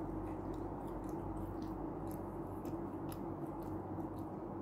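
A person chewing food, with scattered faint, irregular soft clicks from the mouth and food, over a steady low hum.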